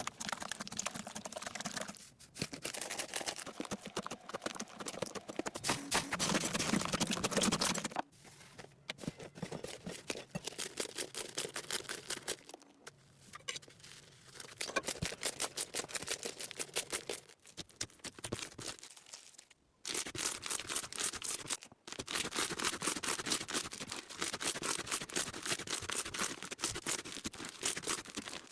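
Slime being squished, pressed and stretched by hand, making rapid crackling and popping. The sound comes in short segments that change abruptly at several cuts.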